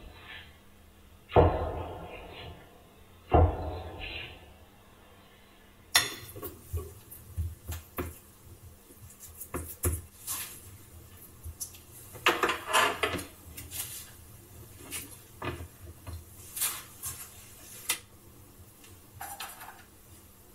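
A metal spoon scraping and tapping against a plate as a soft topping is spread over a tart, in a string of short clinks and knocks. The two loudest come in the first few seconds.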